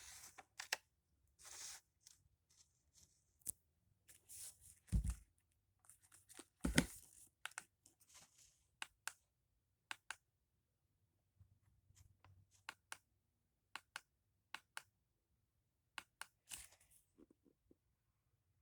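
Paper being handled, as when showing drawings: short rustles and crinkles with many sharp clicks between them, and a couple of dull bumps about five and seven seconds in.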